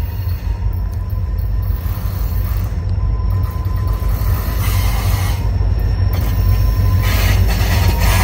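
Diesel-electric freight locomotive approaching, its low engine rumble growing louder. A faint steady high tone runs over it.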